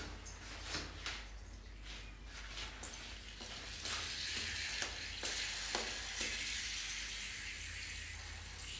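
Several clicks and knocks, then a steady hiss begins about four seconds in and slowly fades.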